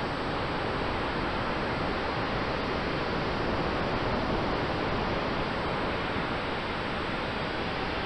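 Steady rushing wind noise of airflow over the onboard camera of a large-scale model biplane in flight, with a faint steady tone underneath.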